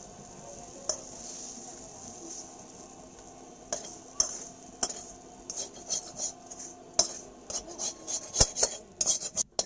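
A metal spatula scraping and clanking against a metal kadai as fried greens and potatoes are scraped out onto a steel plate. It begins about three and a half seconds in, and the strokes come quicker and louder toward the end. Before that there is a steady high hiss with a single click.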